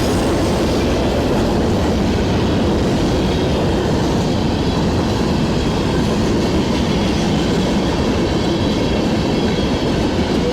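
Freight train passing at a good pace, its cars rolling by in a steady, loud, unbroken noise.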